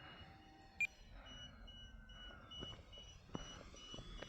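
Electronic low-battery warning beeper sounding a rapid, even string of high beeps, about three a second, marking a flight battery running low on charge. There are a few faint clicks and a faint falling whine behind it.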